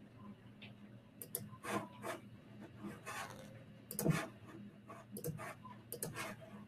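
Faint rubbing, rustling and scattered clicks close to a desk microphone, like someone handling things at a computer, over a low steady hum, with the strongest knock about four seconds in.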